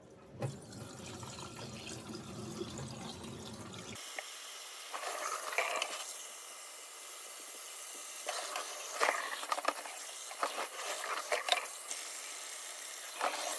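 Tap water running into a stainless steel bowl of pork back ribs in a steel sink, with repeated splashing as gloved hands turn the ribs to rinse the blood out of them. The running water starts about four seconds in, after a quieter stretch of the bowl being handled.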